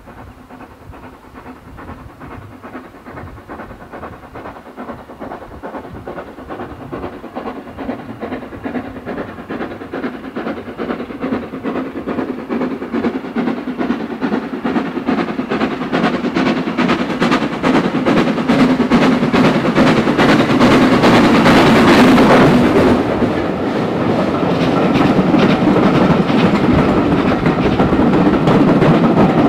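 Hunslet Austerity 0-6-0 saddle tank steam locomotive approaching under steam, its rhythmic exhaust beats growing steadily louder until it passes close by about three-quarters of the way through. Then the coaches behind it roll past, with wheels clicking over the rail joints.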